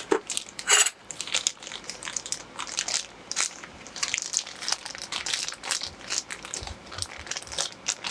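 Plastic packaging crinkling and rustling in irregular crackles as it is handled and unwrapped from a torque wrench, with a sharper crack just under a second in.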